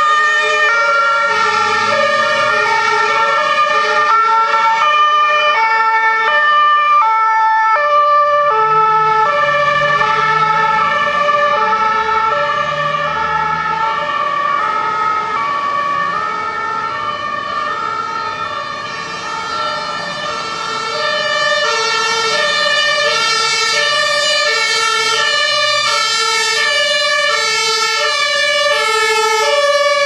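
German two-tone emergency sirens (Martinshorn) alternating between a high and a low note, from a Red Cross ambulance and then an Iveco Magirus TLF 4000 fire engine on call. Two horns at different pitches overlap at first. They fade about 18 s in, and a louder one arrives with diesel engine noise from about 21 s.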